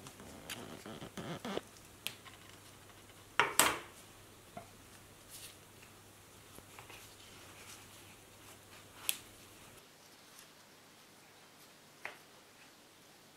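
Gloved fingers working potting soil in a plastic plant pot: soft rustling and crunching, with a brief clatter about three and a half seconds in and a few small clicks after it.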